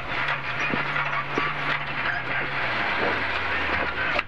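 Renault Clio Rally5's turbocharged three-cylinder engine heard from inside the cabin, its note steady and then dropping about two-thirds of the way through as the car brakes for a corner, over road noise with scattered knocks and rattles.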